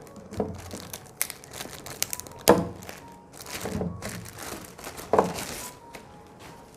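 Plastic packaging crinkling and rustling as a satellite speaker is unwrapped, with several knocks against the box; the loudest knock comes about two and a half seconds in.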